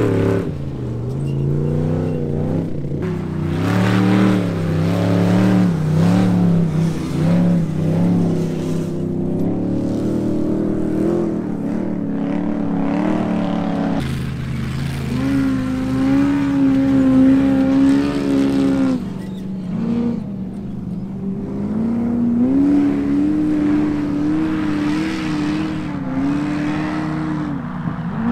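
Off-road vehicle engines revving, climbing and dropping in pitch, with an abrupt change in the sound about halfway through.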